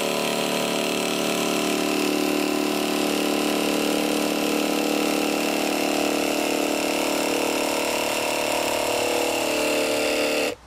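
Makita JV001G 40V XGT brushless barrel-grip jigsaw running steadily as its blade saws through a board, then cutting off abruptly near the end when its power button is pressed.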